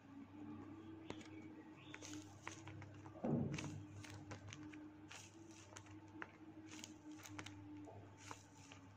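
Handmade paper squishy being squeezed and handled, its paper and tape crinkling in a scatter of soft crackles, with one louder thump about three seconds in.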